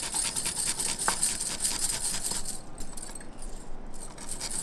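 Garlic cloves being grated on a stainless steel rasp grater: quick, repeated metallic rasping strokes. The strokes ease off for about a second past the middle, then start again near the end.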